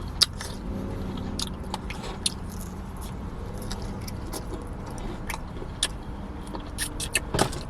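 Someone chewing and biting into crispy KFC spicy fried chicken: scattered sharp crunches and mouth clicks, a few louder ones near the end, over a steady low hum.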